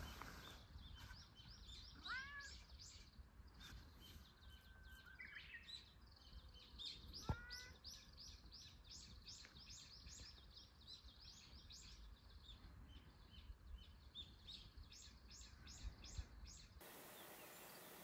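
Faint outdoor birdsong: small birds giving quick series of high chirps, with two or three lower sliding calls and a faint low rumble underneath. Near the end the birdsong cuts off, leaving only a steady hiss.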